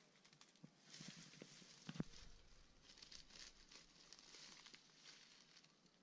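Faint crackling and rustling of dry leaf litter as hands and a small hand tool scrape and dig at the base of a bamboo stem, with one sharper thump about two seconds in.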